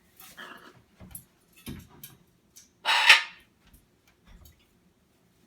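Blue-and-gold macaw making a few short harsh calls, the loudest about three seconds in.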